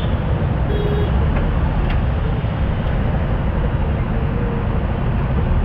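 Idling motorcycles and cars in stopped traffic: a steady low rumble.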